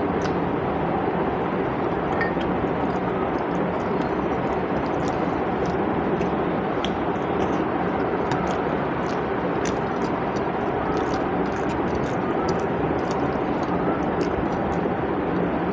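Steady rushing background noise, with frequent small wet clicks and smacks of chewing and fingers mixing rice and curry.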